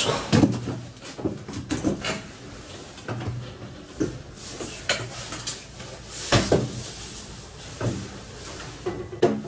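Irregular knocks, clicks and clatter of aluminium frame members and wall panels being handled and fitted by hand, with the loudest knock a little past the middle.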